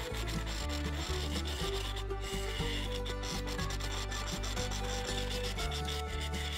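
Bent hollowing tool cutting inside a spinning box elder vase blank on a wood lathe: a steady scraping rub as shavings are thrown out of the opening, over the lathe's running hum.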